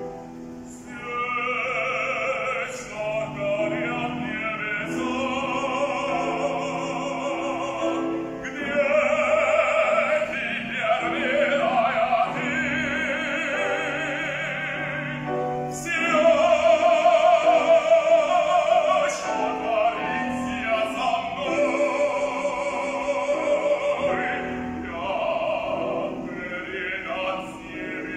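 A man singing in operatic style with vibrato, accompanied by a grand piano; his voice swells loudest about nine and again about sixteen seconds in.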